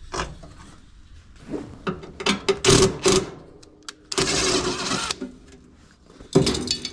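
Whirlpool Duet dryer running briefly, with loose objects in the blower wheel (squirrel cage) clattering against it. The rattling comes in bursts, the densest about four seconds in, and it is the sign of debris such as a brush and coins caught in the blower fins.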